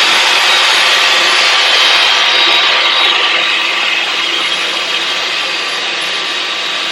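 Two cordless stick vacuums, a Dyson V11 Torque and a Jashen V16, running together with a loud steady whir as they suck up lines of table salt from a hard floor. The sound eases slightly after about three seconds.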